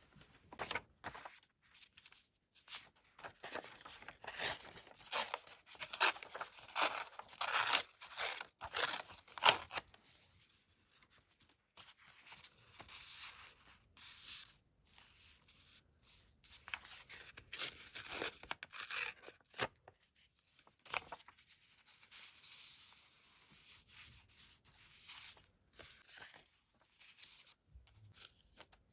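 Paper being torn by hand in a run of short rips, heaviest through the first third and lighter and sparser after that.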